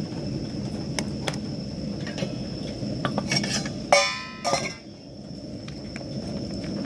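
Metal camping cookware clanking: a few light clinks, then a loud ringing clank about four seconds in and a second one just after, over the steady sound of heavy rain.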